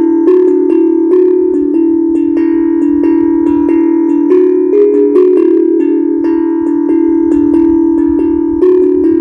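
HAPI steel tongue drum played by hand: a steady run of struck notes, about two or three a second, each ringing on and overlapping the next in a pentatonic scale.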